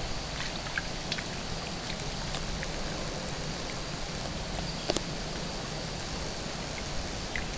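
Steady outdoor noise, dotted with scattered short ticks and chirps, with one sharper tick about five seconds in.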